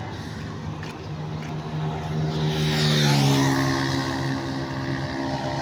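A motor vehicle driving past, its engine note growing louder and dropping in pitch as it goes by about three seconds in, over the steady sound of road traffic.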